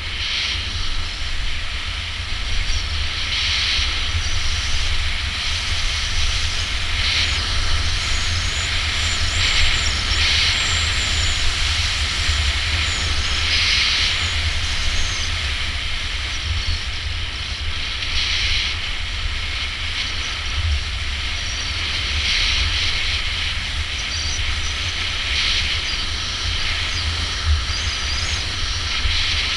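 Skis hissing and scraping over snow on a downhill run, the hiss swelling every few seconds, over a steady low rumble of wind on the microphone.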